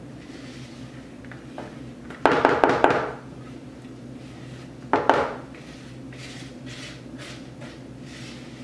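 A spoon knocking and scraping against a mixing bowl as thick cookie dough is scooped out into a larger bowl. There is a burst of several quick knocks about two seconds in and a shorter knock about five seconds in.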